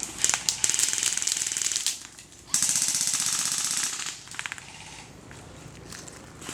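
Airsoft automatic rifle firing two long full-auto bursts of rapid clicking shots, each about a second and a half, with a short gap between them, followed by a few scattered clicks.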